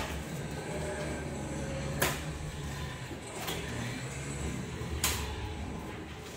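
Cardboard shipping box being opened by hand: scraping and rustling of the taped top flaps, with two sharp cardboard snaps or knocks about two and five seconds in, over a steady low hum.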